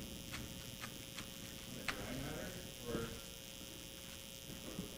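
Quiet room tone with a steady electrical hum, a few faint clicks in the first two seconds and a faint murmur of a voice around the middle.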